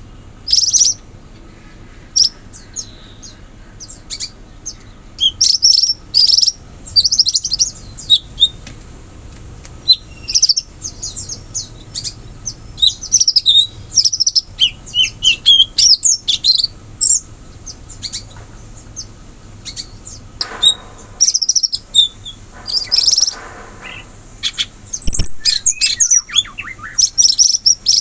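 Cucak cungkok singing: rapid bursts of high chirps and whistles, with pauses between runs. Two harsher, buzzy calls come about two-thirds of the way through.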